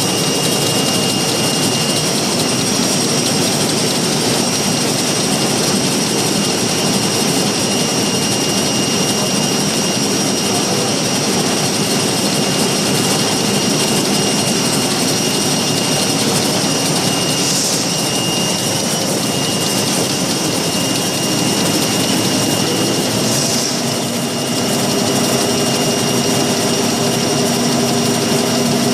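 Napkin-making machine running at speed: a loud, steady mechanical whir with a constant high whine. About 24 seconds in it dips briefly, then a lower hum with several steady tones joins.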